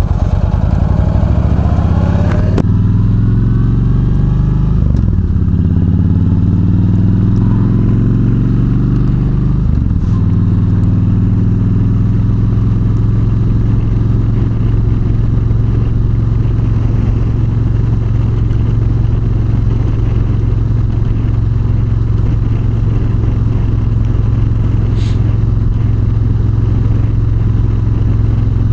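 Yamaha V-Star 1300's V-twin engine accelerating through the gears, its pitch rising and dropping back at each of a few shifts in the first ten seconds or so, then settling into a steady cruise.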